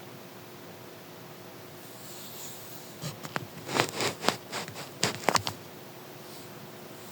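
Stomach gurgling heard close up: a quick run of pops and clicks starting about three seconds in and lasting a couple of seconds, over a steady faint hiss.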